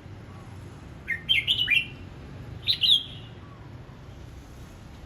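Red-whiskered bulbul singing: a phrase of several quick, clear notes about a second in, then a shorter phrase near three seconds, over a steady low background hum.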